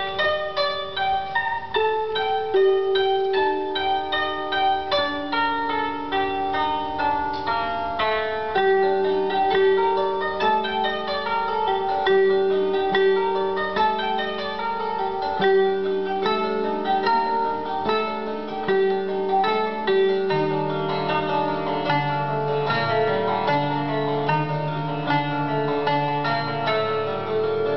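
Japanese traditional music played on a plucked zither (koto): a steady stream of quick plucked notes over lower, longer-held notes.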